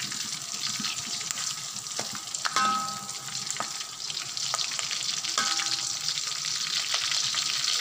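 Chicken pieces and curry leaves sizzling in hot oil in a wok, stirred with a metal ladle. The ladle scrapes against the wok and clinks on it a few times, and the wok rings briefly.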